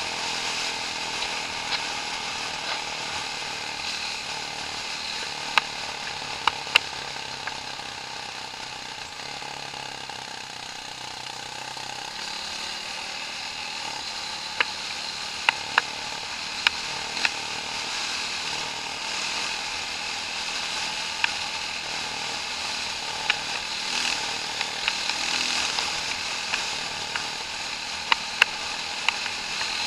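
Off-road vehicle's engine running steadily under a hiss of wind and trail noise, with scattered sharp clicks and knocks.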